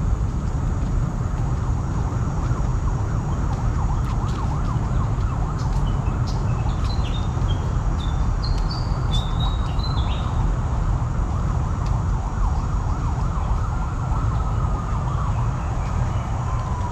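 Steady rumble of city traffic. A run of short, high stepping chirps sounds in the middle, and a siren-like tone slowly falls in pitch near the end.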